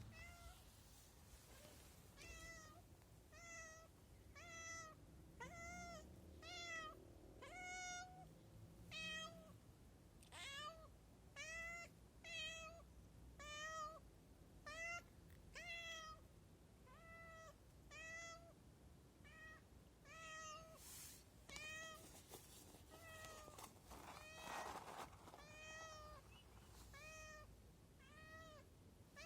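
A hungry cat meowing for food over and over, about one short rising-and-falling meow a second. There is a brief rustle near the end.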